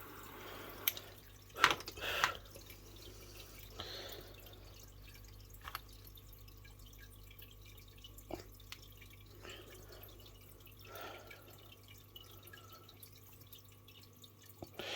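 Hands working paracord and a fid at a table: a few scattered small clicks and light rustles, over a faint steady hum.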